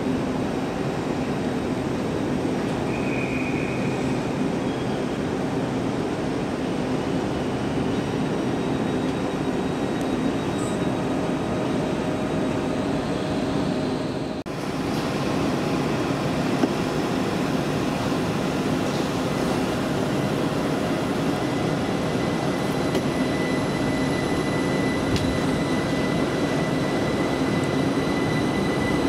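Train running at a station platform: a steady rumble and hum with faint whining tones, dipping briefly about halfway through.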